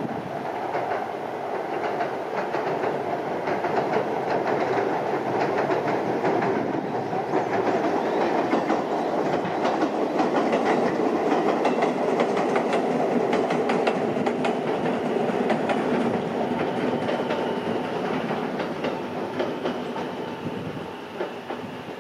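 Joshin Electric Railway train crossing a steel girder bridge: a rumble with wheels clacking over the rail joints. It builds to its loudest around the middle and fades near the end.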